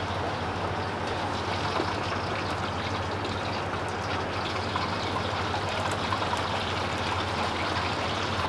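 Chicken pieces deep-frying in plenty of hot oil in a wok: a steady sizzling and bubbling, with a low hum underneath.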